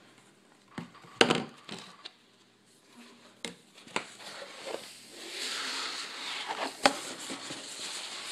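Cardboard poster tube handled with a sharp knock about a second in and a few lighter taps, then rolled paper posters sliding out and unrolling, a steady paper rustle from about five seconds in.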